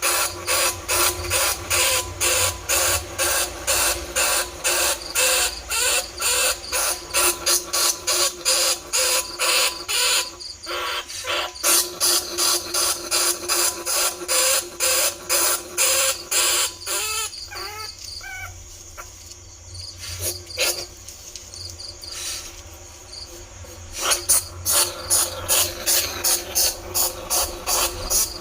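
A rat-luring call of rapid, repeated high squeaks, about three a second, imitating a bandicoot rat's squeals. The squeaks pause twice, once briefly and then for several seconds with a few softer gliding chirps, before starting again.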